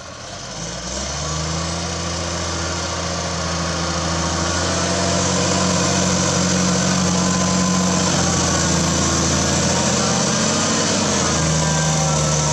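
Zetor Crystal 160 tractor's diesel engine running steadily under load as it pulls a Helti subsoiler through the soil. It grows louder over the first few seconds as the tractor comes closer, then holds level.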